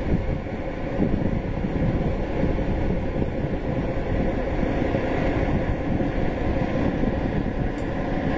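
Small DIEMA narrow-gauge diesel shunting locomotive running as it moves slowly along the station track, its engine a steady low drone.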